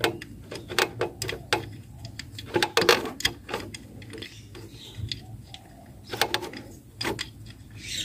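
Irregular metal clicks and light knocks from the bolts of a Perodua Myvi's oil filter housing being put back in by hand, coming in bunches with short pauses between.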